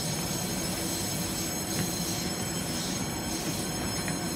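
Taiwan Railways EMU700-series electric multiple unit close by, its electrical equipment giving a steady hum with thin high-pitched whines over it.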